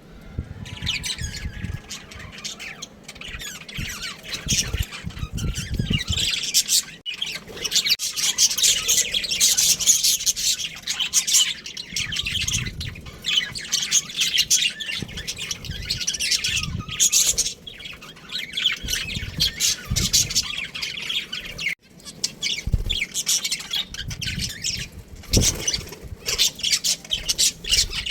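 Budgies chattering and squawking, a dense, continuous stream of fast high chirps, with irregular low bumps underneath.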